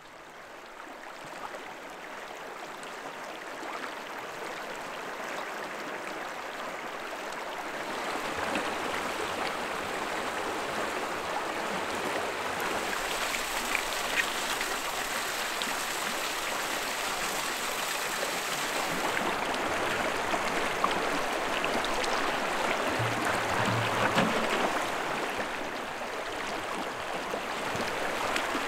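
Shallow river water running over rocks, a steady rush with small trickles and splashes, fading up over the first several seconds.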